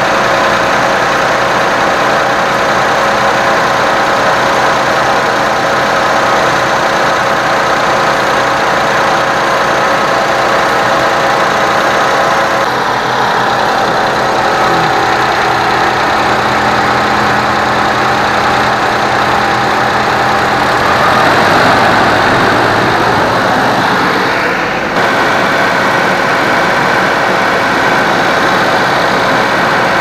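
Suzuki Jimny JA11's small three-cylinder engine running while its air conditioning is charged with refrigerant. About two-thirds of the way in its speed rises and is held higher, at about 2000 rpm.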